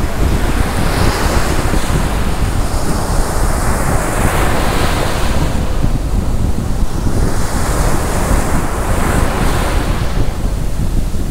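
Surf washing onto a sandy beach in slow, swelling surges, under strong wind rumbling on the microphone.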